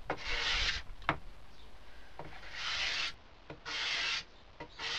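Hand scraper drawn across a wooden board in about four separate raspy strokes, scraping off the old finish, with a sharp click about a second in.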